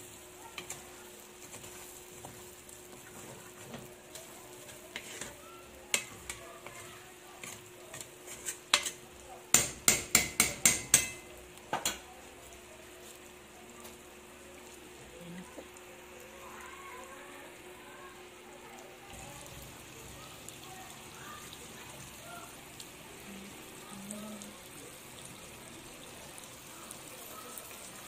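A metal spoon stirs and scrapes corned beef and potatoes in an aluminium pot, with scattered clicks and then a quick run of about seven loud knocks of the spoon against the pot about ten seconds in. After that only a faint sizzle of the food frying over low heat remains.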